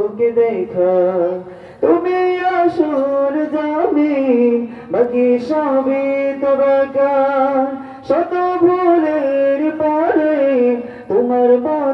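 A man singing a Bengali Islamic devotional song into a microphone, in long held, wavering phrases that start about every three seconds.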